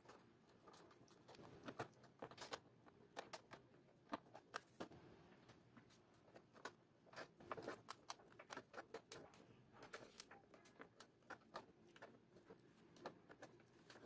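Faint, irregular scratching and clicking of a small hand tool working at the edge of an acrylic plastic sheet, in quick uneven strokes throughout.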